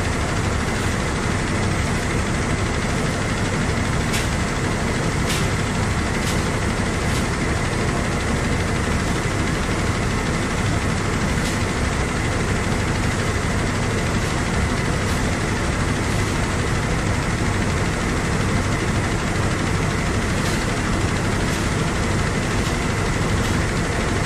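Rice combine harvester's engine running steadily, heard from on top of its grain tank, with a few faint ticks.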